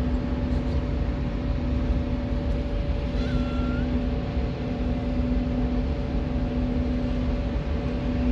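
Steady mechanical hum with a constant low tone, like a motor or engine running, and a brief higher tone about three seconds in.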